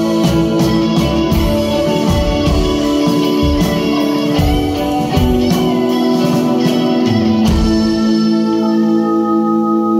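Live rock band playing loudly, drums hitting under held guitar and keyboard notes. About seven and a half seconds in the drums stop and a held chord rings on.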